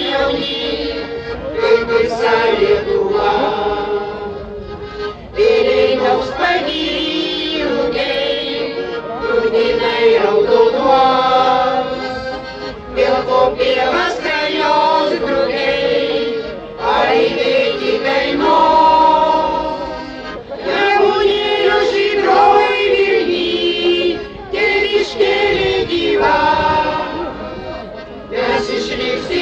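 Amateur choir of mostly women's voices singing a song with piano accordion accompaniment, in phrases broken by brief pauses every few seconds.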